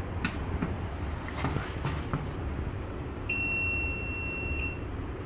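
A few sharp clicks as the battery is switched on, then one steady, high-pitched electronic beep lasting over a second, starting about three seconds in, as the battery system powers up with the inverter.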